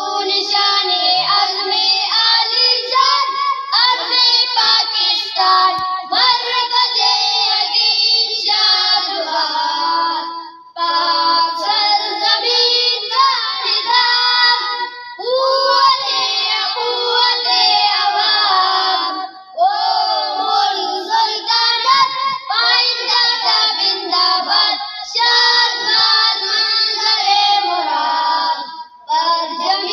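A group of boys singing together in long sung phrases with brief pauses between them.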